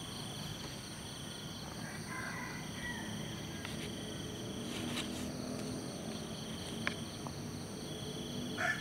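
Steady chorus of insects trilling at several high pitches, with a few faint chirps and clicks.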